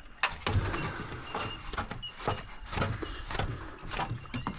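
A landed shovelnose ray flopping around, giving a run of irregular slaps and scuffs.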